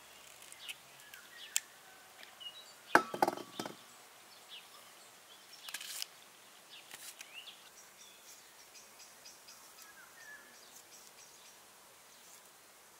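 Scattered sharp knocks and crackles from food being worked by hand. The loudest is a cluster of knocks about three seconds in, with another near six seconds, over faint bird chirps.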